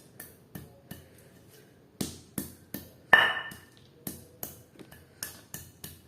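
Pestle pounding nutmeg in a mortar: sharp knocks about three a second, with a short pause about a second in. One harder knock about three seconds in rings briefly.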